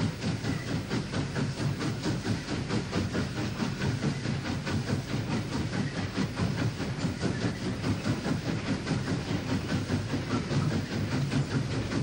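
Victorian Railways K class 2-8-0 steam locomotive K160 working under steam, its chimney exhaust beating in a quick, even chuff.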